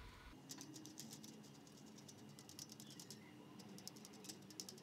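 Faint rapid light clicking and ticking of a small steel coil spring and pliers against a plastic tub lid as the spring is handled and brushed, in two runs: one starting about half a second in, another near the end.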